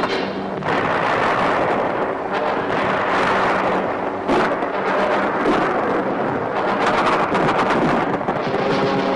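Dense, continuous gunfire and artillery fire, with one sharp crack about four seconds in.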